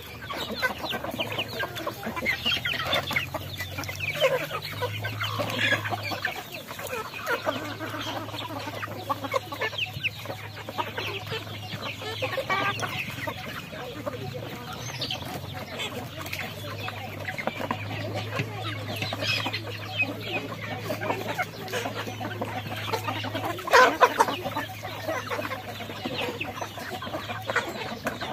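A flock of chickens clucking and calling constantly while they feed, many short overlapping calls, with one brief louder sound about four seconds before the end.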